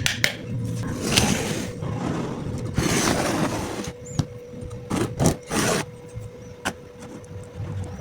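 Wood being worked by hand, with irregular scraping strokes and a few sharp knocks.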